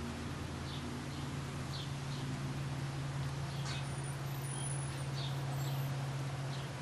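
Small birds chirping in short, high notes every second or so, with one falling whistle about halfway through, over a steady low hum that swells slightly after the middle.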